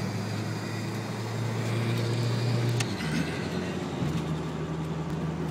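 Road noise from a 1987 Toyota 4Runner at highway speed on TreadWright Guard Dog mud-terrain retread tyres: a steady tyre drone with a low hum that steps up in pitch about three seconds in.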